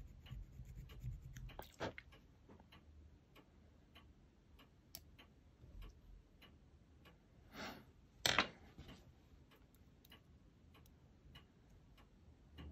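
Faint small clicks and light scraping from handling tiny plastic model parts and tools on a workbench, with one sharper click about eight seconds in.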